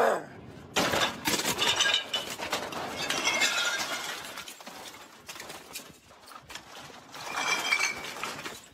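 Store merchandise being swept off shelves: packaged goods and bottles crashing and clattering to the floor in a few loud, irregular bursts.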